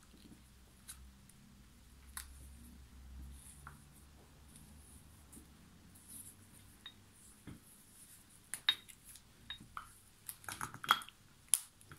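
Plastic lamp socket and wiring being handled as the socket is fitted onto the cable: quiet fiddling at first, then a run of short sharp plastic clicks and taps in the second half.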